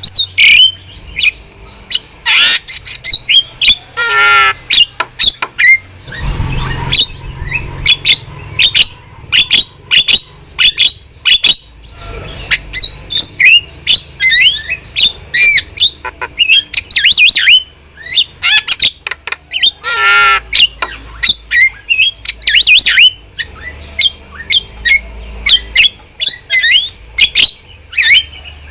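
An Asian starling (jalak) singing a fast, varied chatter of short whistles and chips, broken several times by harsh squawks.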